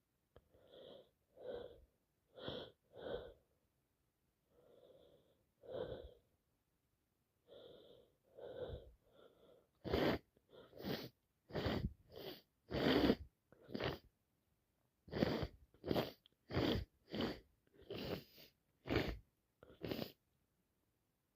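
A woman in a fit of sneezing she can't stop. For about ten seconds there are softer, spaced breathy sounds; then comes a rapid run of about twenty short, louder sneezes, nearly two a second, with one brief pause.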